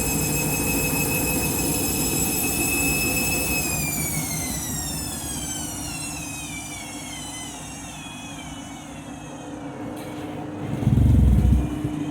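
Candy washing machine's motor whining at a steady high pitch during a spin, then winding down with a falling whine as the drum slows, with a brief deep rumble about eleven seconds in.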